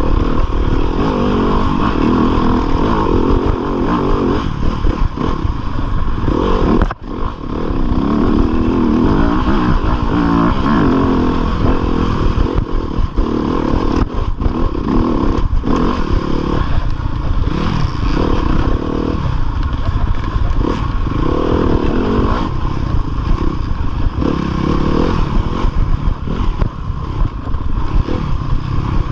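2015 Yamaha YZ250FX dirt bike's 250 cc four-stroke single-cylinder engine revving up and down under hard race throttle, heard from the rider's chest, with chassis clatter over rough ground. About seven seconds in the sound drops away briefly before the throttle picks up again.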